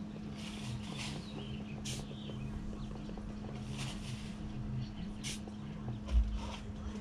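Steel shovel scraping into a pile of sand, a short hissy scrape every second or two, over a steady low hum. A low thump a little after six seconds.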